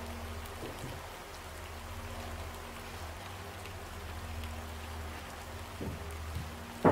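Steady rain-like hiss over a low, steady hum, with a couple of faint knocks near the end.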